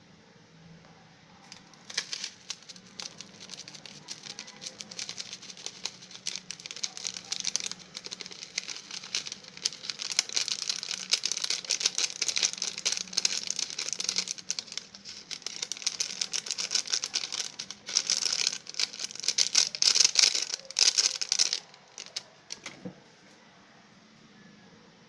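Foil seasoning sachet crinkling as it is handled and shaken, with granules pattering onto the food in the pot; dense and crackly, loudest near the end, then stopping suddenly.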